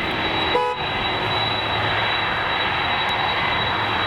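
Boeing 747's four jet engines running steadily, a continuous rushing noise with a high steady whine on top.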